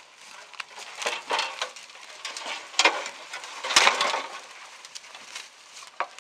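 Branches and undergrowth rustling and crunching as someone pushes through dense brush, with a few sharper knocks near the middle.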